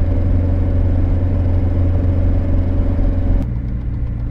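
Camper van engine and road noise heard inside the cab while driving, a steady low drone. About three and a half seconds in it changes abruptly to a duller, quieter drone with a faint fast ticking.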